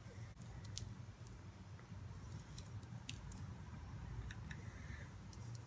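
Faint, scattered wet clicks of a thick homemade potato-and-yogurt cream being rubbed over the back of a hand, over a steady low hum.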